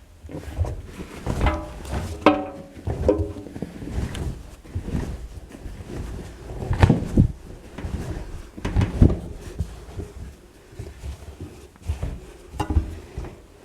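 AEG Öko Lavamat washing machine giving a run of irregular knocks and clunks, with a short squeak about two seconds in.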